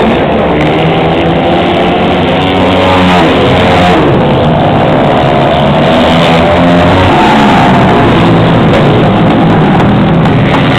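A pack of dirt-track racing motorcycles running hard round the oval. Several engine notes overlap and rise and fall as the bikes pass.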